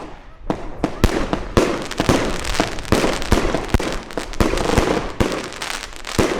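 Consumer fireworks cake with 30 mm tubes firing shot after shot. Sharp bangs of the bursts come irregularly, often two or three a second, with crackling and hiss in between.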